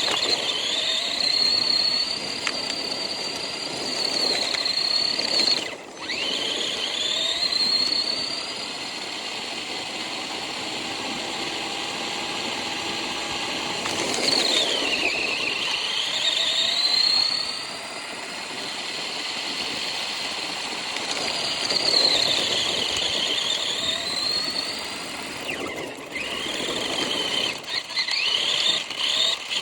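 Remote-control car's motor whining at a high pitch throughout. The pitch dips and climbs back up several times, with a brief cut-out about six seconds in and a few stutters near the end.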